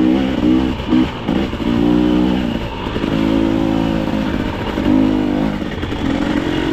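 Dirt bike engine under way, the throttle eased off and opened again several times so that the engine's pitch falls and rises.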